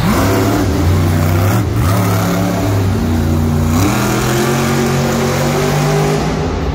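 Grave Digger monster truck's supercharged V8 engine revving hard under throttle, its pitch climbing and then holding in steps, rising again about two and four seconds in.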